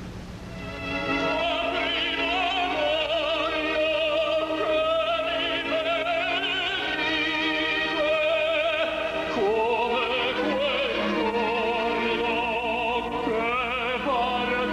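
Operatic tenor singing with wide vibrato. He holds one long note for several seconds, then moves up into higher, shorter phrases near the end.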